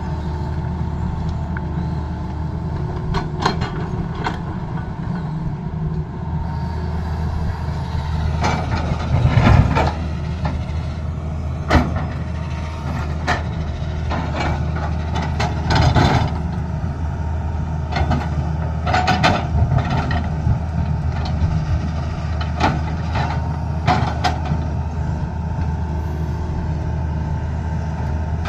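Tata Hitachi crawler excavator's diesel engine running steadily under load, with irregular sharp knocks and scrapes as its bucket digs into rocky earth. The loudest burst comes about nine seconds in.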